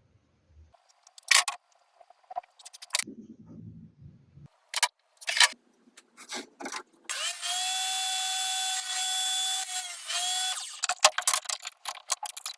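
Clicks and knocks of tools and wood being handled, then a small electric drill running at a steady speed for about three and a half seconds in the second half, followed by more clicks.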